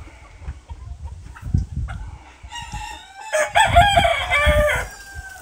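A rooster crows once, a long drawn-out call of about two and a half seconds starting about halfway in, with hens clucking softly before it.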